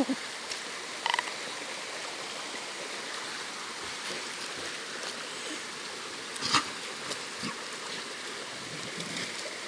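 Steady ambience of a small trickling creek in a wooded gully. A short chirp comes about a second in, and a single sharp sound about six and a half seconds in.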